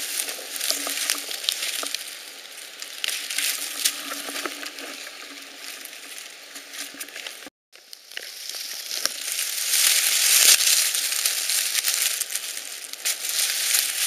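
Crackling and rustling of dry leaf litter, twigs and grass being brushed and handled close to the microphone, many small crackles running together. The sound cuts out for a moment about halfway through, then resumes busier.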